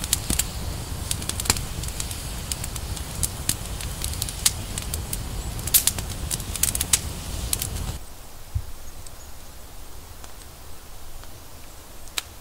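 Campfire crackling, with sharp irregular pops over a low flutter of flames. About eight seconds in it cuts to a quieter steady hiss, with a single click near the end.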